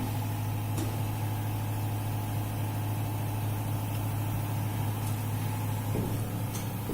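Steady electrical hum of a two-head PVC window welding machine running, with a few faint clicks.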